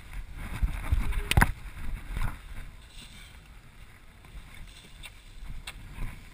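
Rumble of wind and handling on a helmet-mounted camera's microphone, with knocks and scuffs of boots walking down a dry dirt trail, loudest in the first two seconds and quieter after.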